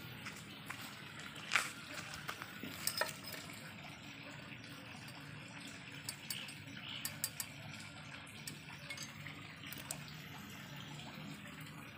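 Scattered light clicks and clinks of a rod touching the steel stove bowl and its ash, sharpest about one and a half and three seconds in, over a steady low background hum.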